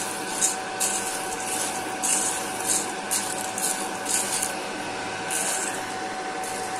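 Cormorant CR600 electric coffee roaster's fan running with a steady whine, cooling freshly dropped beans. Over it comes an uneven rustle and scrape of the roasted beans being stirred with a wooden spoon in the steel bowl.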